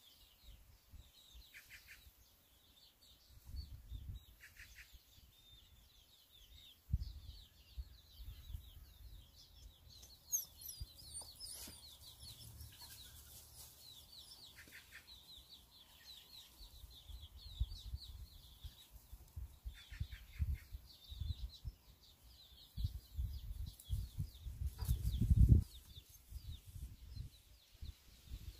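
Cheonggye chickens (blue-egg-laying hens) clucking softly among dense high chirping of small wild birds, with scattered low rumbles and knocks, the loudest near the end.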